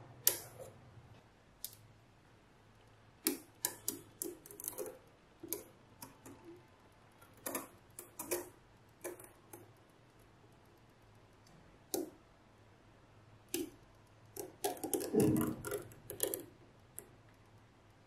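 Small magnet balls clicking as they snap onto each other and onto a magnet-ball model, in scattered single and double clicks with a busier run of clicks about fifteen seconds in.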